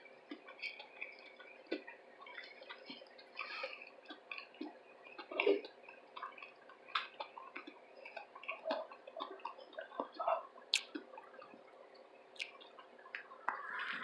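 Close-miked mukbang eating sounds: wet chewing, lip smacks and small mouth clicks, irregular and soft, with a few louder mouthfuls.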